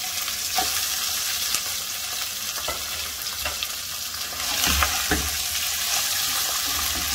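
Boiled mutton pieces sizzling as they fry in hot desi ghee with whole spices, stirred with a spatula that scrapes and knocks against the pot. The sizzle grows louder about four and a half seconds in.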